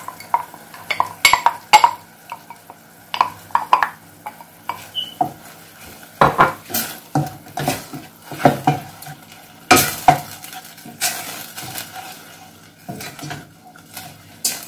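Wooden spoon scraping ketchup out of a glass bowl and stirring it into a stainless steel saucepan, with irregular knocks against the pan, the loudest about ten seconds in. The boiling sauce sizzles faintly underneath.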